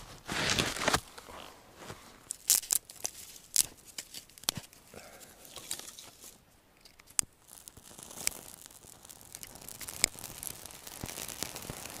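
Footsteps crunching through crusted snow: a loud crunch in the first second, then scattered sharp crunches about a second apart.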